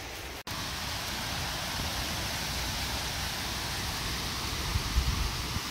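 A steady, even hiss with no voice in it, after a brief cut-out about half a second in; a faint low thump about five seconds in.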